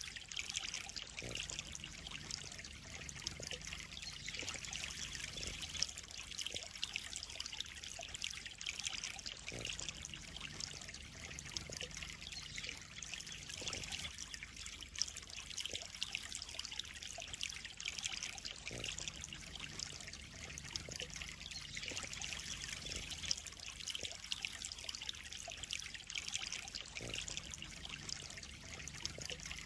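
Water trickling and splashing steadily into a koi pond, an even running-water sound with a faint low hum underneath.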